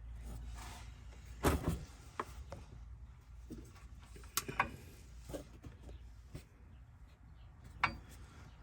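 Scattered knocks and clinks of a wrench on a pickup's oil drain plug, which is stuck and will not turn. The sharpest clinks come about a second and a half in, around the middle, and near the end.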